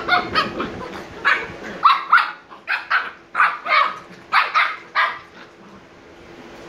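Shiba Inu puppy barking in a quick series of short, sharp yaps during rough play with another puppy, about a dozen barks that stop near the end.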